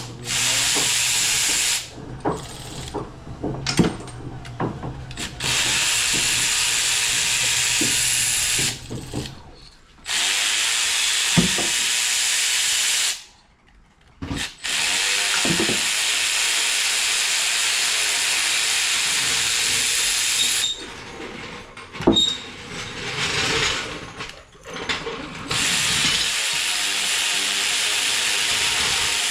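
A power tool running in repeated bursts of about two to six seconds, stopping and starting, with sharp metal clicks and clanks in the pauses, as parts are taken off an LS V8 engine during teardown.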